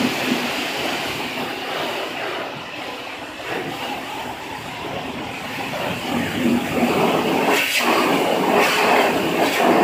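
High-pressure car-wash wand spraying water onto a pickup truck's body panels and wheel, a steady hiss of spray that gets louder over the last few seconds.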